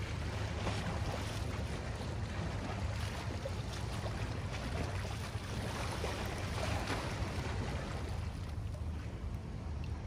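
Small waves lapping and washing against shoreline rocks in gentle swells, over a steady low rumble.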